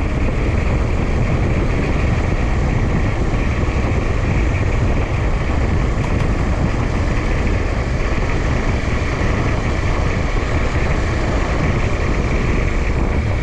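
Honda Tornado 250 motorcycle under way, heavy wind rushing over the on-board microphone with the bike's running noise beneath, loud and steady throughout.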